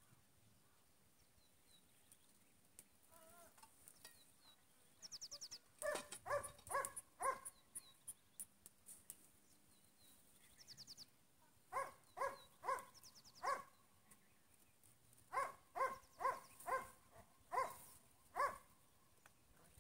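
Dog barking loudly in three volleys of quick barks: four about six seconds in, four more around twelve seconds, then about seven near the end.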